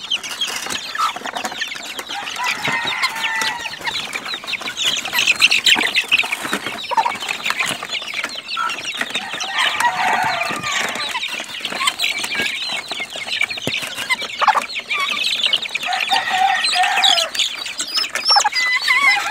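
A pen of young game-fowl chicks peeping and clucking nonstop, many short high calls overlapping.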